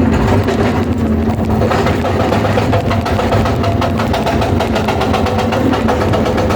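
Excavator engine running with its hydraulic breaker hammering on stone in a rapid, even rhythm of blows, getting brighter and harsher about two seconds in.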